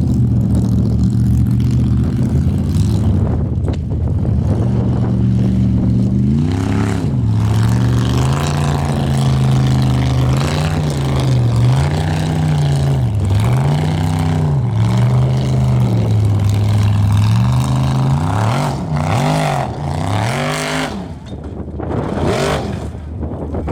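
Formula Offroad race buggy's engine running hard, its pitch rising and falling every second or two as the throttle is worked on a hill climb. Near the end it revs up and down faster, then drops back.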